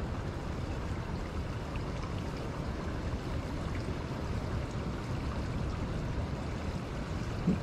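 Steady rush of flowing creek water, with a low rumble of wind on the microphone.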